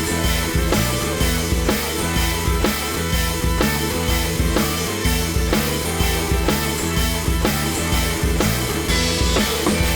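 Background rock music with drums, bass and guitar playing a steady beat.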